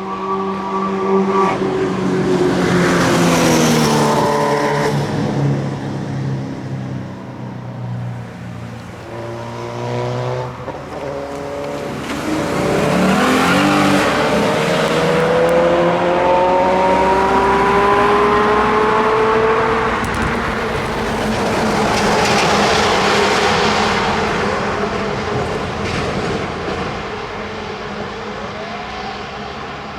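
Cars on the road: one passes close by a few seconds in with its engine note falling, then an engine accelerates hard. Its pitch climbs steadily, drops back at gear changes and climbs again, and a car rushes past again after the middle.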